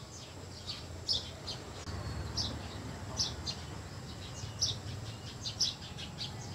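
Small birds chirping: short, high chirps repeated irregularly, several a second at times, over a steady low rumble.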